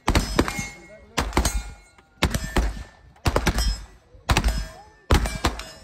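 Gunfire: a quick group of two to four shots about once a second, six groups in all, each trailing off in echo.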